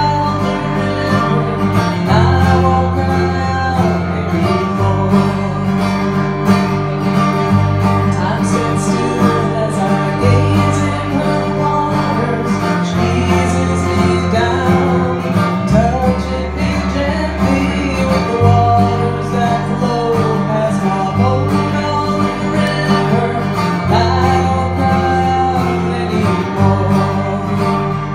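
Live country-style music from two guitarists playing through small amplifiers, with plucked melody lines over a low bass line that moves every two to three seconds.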